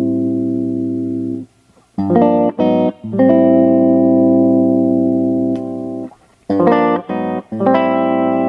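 Yamaha Studio Lord SL-500 guitar being played. A held chord is cut off, then a few short stabbed chords and a long ringing chord. After a pause come another quick run of stabs and a chord left ringing.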